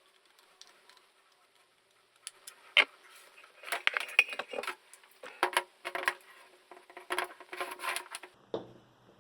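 Metallic clicking and rattling as a spring-loaded welding electrode holder is handled and its jaws are clamped on an electrode. A single sharp click comes about three seconds in, followed by several seconds of irregular clicks and rattles.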